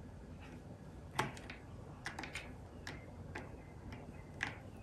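Light, irregular clicks and taps of tweezers against a plastic SHRED-ER cartridge and a glass work surface while tissue discs are handled, about ten in all, the loudest a little over a second in.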